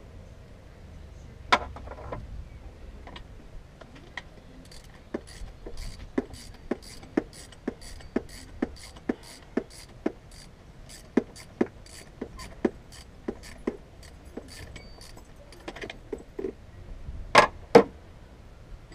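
A ratchet wrench clicking in a steady run of short strokes, about two to three clicks a second, as the alternator mounting bolt is run in. A single sharp metal clink comes about a second and a half in, and two louder metal clanks near the end as wrenches are handled.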